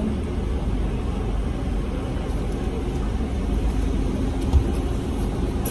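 Steady low rumble of a car heard from inside the cabin, engine running.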